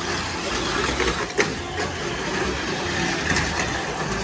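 Tamiya Mini 4WD cars running on a multi-lane plastic track: small electric motors whirring with a plastic rattle, and a sharp clack about a second and a half in.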